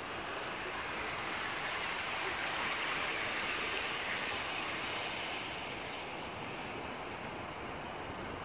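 Model Class 59 locomotive and a rake of ARC hopper wagons rolling past on garden-railway track. Wheels and motor make a steady rushing that swells about three seconds in, then fades as the train moves away.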